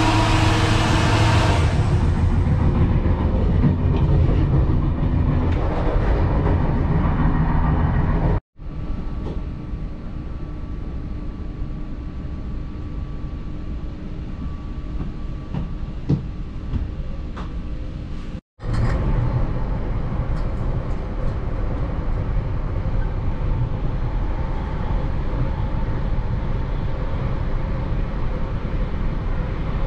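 Inside a V set double-deck electric train: a steady rumble of running noise. A quieter stretch of steady hum lies in the middle, and the sound cuts off abruptly twice.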